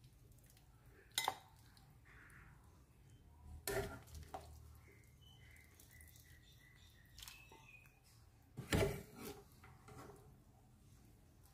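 Metal ladle clinking against a pan and a ceramic bowl as soup and pork knuckle pieces are ladled out: three sharp knocks, the loudest about nine seconds in, with a few lighter taps between.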